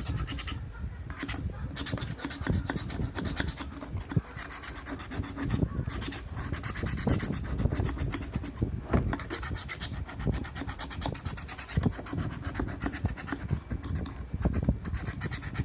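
Scraping and rubbing by hand on the parts of a broken water pump under repair, in quick, irregular strokes.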